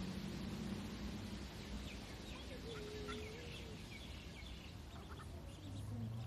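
Mallard ducklings peeping in faint, short, high chirps scattered from about two seconds in, over a steady outdoor hiss.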